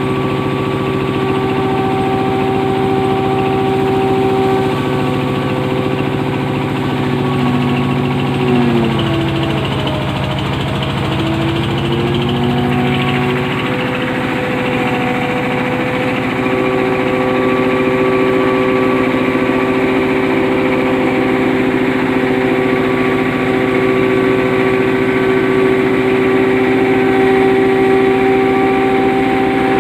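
Hammer mill for grinding dry livestock feed running steadily with a loud mechanical hum. About nine seconds in its pitch sags for a few seconds, then climbs back and holds steady.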